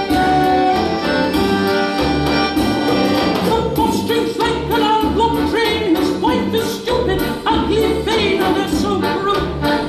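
Background film music with a steady bass beat under a busy melody; from about three and a half seconds in, a wavering higher line joins.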